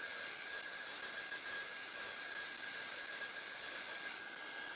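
Handheld hair dryer blowing: a steady rush of air with a constant whine on top.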